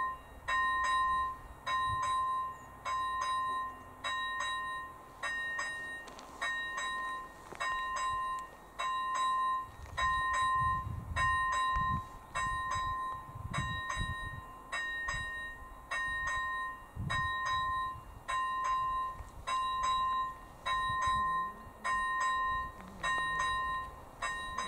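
AŽD ZV-01 electronic level-crossing bell ringing a steady ding about once a second, the crossing's warning for an approaching train.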